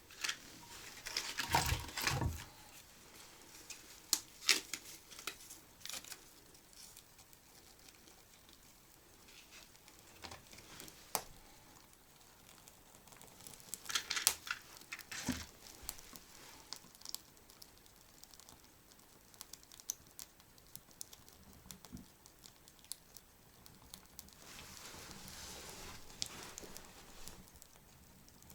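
Intermittent rustling and crinkling with scattered sharp clicks and knocks, the loudest cluster about two seconds in and another about halfway through; a soft hiss swells briefly near the end.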